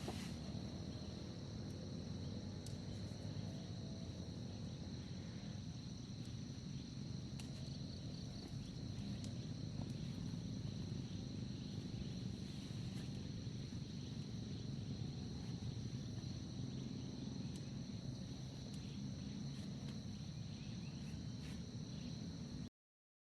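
Steady insect chorus in the forest: a continuous high trill at two pitches over a low rumbling background, cutting off abruptly to silence near the end.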